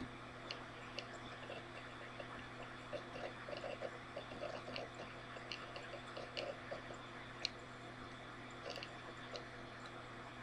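Faint room tone: a steady low hum and hiss, with about a dozen scattered small clicks, the sharpest about seven seconds in.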